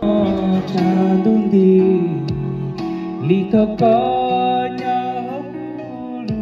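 Karaoke: a man singing into a handheld microphone over a backing track with guitar.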